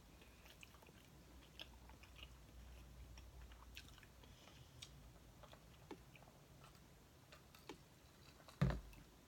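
Faint mouth sounds of drinking through a straw: small scattered clicks and swallows, with one louder low thump near the end.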